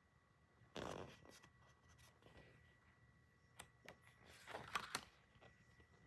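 Faint rustling and handling of paper and plastic packaging, with a few light clicks: a rustle about a second in, two small clicks a little later, and a busier rustle near the end.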